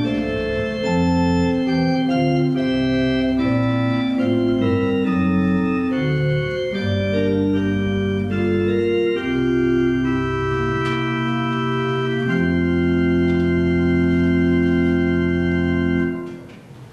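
Church organ playing slow sustained chords, closing on a long held chord that releases about a second before the end.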